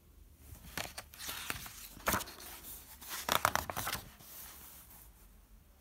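Pages of a picture book being turned by hand: a run of paper crackles and rustles, loudest about two seconds in and again around three and a half seconds, dying away after about four seconds.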